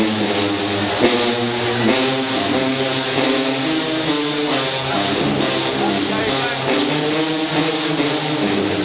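A marching band's brass section playing, with sousaphones carrying the low line: loud, sustained chords that shift every second or so.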